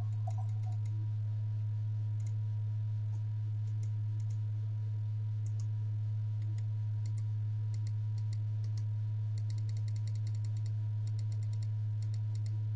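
LED mini projector giving off a steady low hum, with faint short clicks here and there that come quickly for a couple of seconds near the end.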